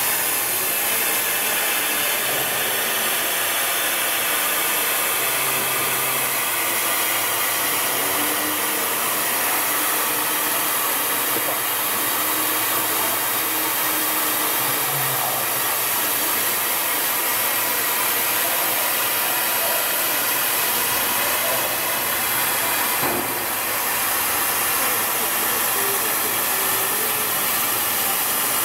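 Flash Laser FL-1390 laser cutting machine running while it cuts sponge foam: a steady rushing hiss of blown air, with faint short low tones coming and going as the head moves.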